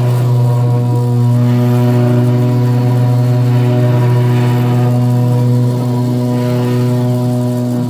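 500 W ER11 DC spindle motor running steadily on a CNC router while a 3 mm flat end mill cuts a pine board. It makes a loud, even hum with several held tones above it, and some of the higher tones change after about six seconds as the machine moves.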